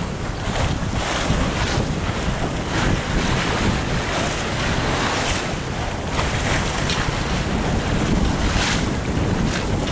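Wind buffeting the microphone over the rush of water along a sailboat's hull as it sails through choppy waves, surging now and then.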